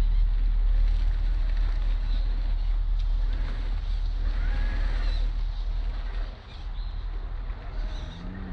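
Traxxas TRX-4 RC scale crawler's electric motor and gear train whirring as it creeps slowly up a rock, under a steady low rumble of wind on the microphone that eases about six seconds in.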